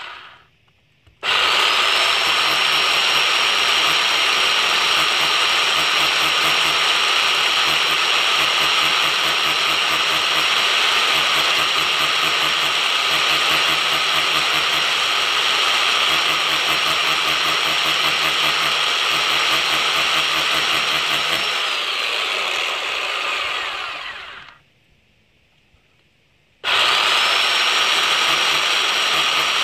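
Rotary hammer drill boring into brick for an anchor bolt hole. It starts about a second in with a whine that rises as the motor spins up, then runs steadily with a fast hammering rhythm for about twenty seconds. It winds down with a falling whine and stops, then starts up again after about two seconds.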